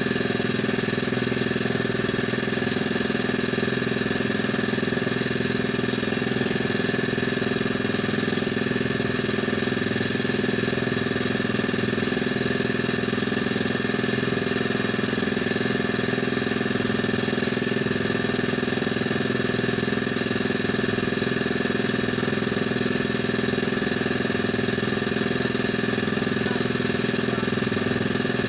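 A small engine on the fishing boat running steadily at an unchanging idle, a constant drone with no revving.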